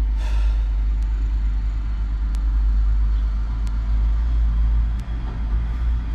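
Steady low rumble, with faint sharp ticks a little over a second apart.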